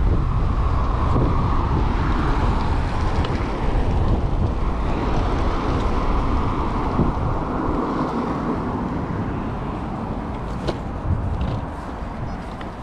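Wind buffeting an action camera's microphone during an off-road e-bike ride, with steady rumble from the bike and trail. A few sharp clicks and rattles come near the end.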